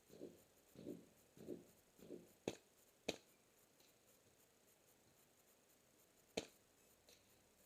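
An airsoft M14 EBR with a Polar Star Fusion Engine firing single shots as sharp cracks: two about half a second apart, a couple of seconds in, and a third a few seconds later. Before them comes a row of soft, evenly spaced thumps.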